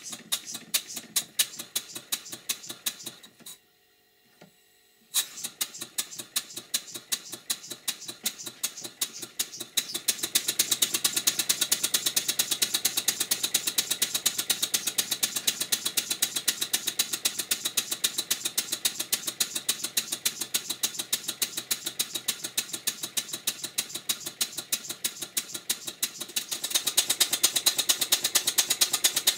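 Stuart 5A model steam engine running on compressed air on its first test run, giving a rapid, regular exhaust beat with hiss. The beat breaks off briefly about four seconds in, then picks up faster and hissier after about ten seconds and gets louder near the end.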